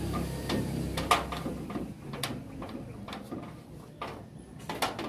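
Scattered sharp clicks and knocks, a second or so apart, from tools and materials being handled on a corrugated metal roof during flashband tape repair work.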